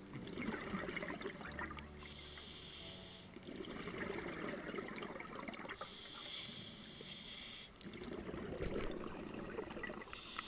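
Scuba diver breathing through a regulator underwater: a hissing inhale alternating with a gurgling rush of exhaled bubbles, about three breaths in slow, regular rhythm.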